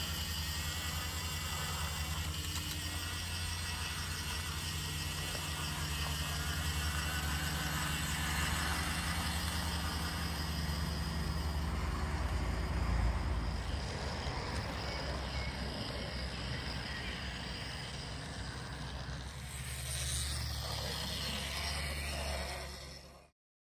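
Model LNWR 'DX Goods' 0-6-0 locomotive running along garden railway track: a steady low hum and rumble of the running train. It swells twice as the train comes nearer and stops suddenly near the end.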